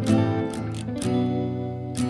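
Acoustic guitar strumming chords in a steady rhythm, an instrumental passage between sung lines.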